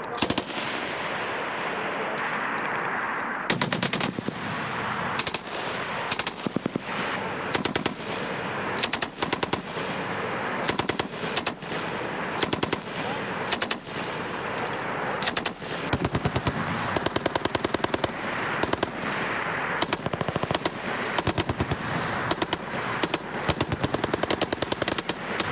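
Machine-gun fire in repeated short bursts of rapid shots, one burst after another.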